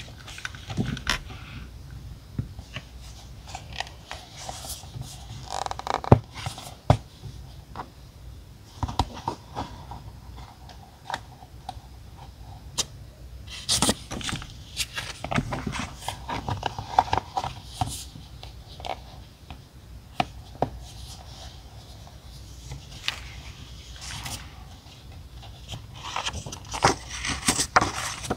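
Paper stationery being handled for diary decorating: scraping and rustling of paper and sticker sheets, with many sharp taps and clicks as small items are set down on the desk.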